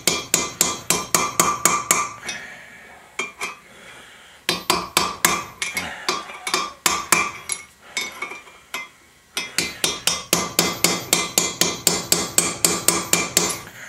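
Hammer rapidly tapping a steel punch set against a valve seat in a cast-iron cylinder head, trying to knock the ground-thin seat loose. Quick ringing metal-on-metal strikes, about six a second, in three runs with short pauses between.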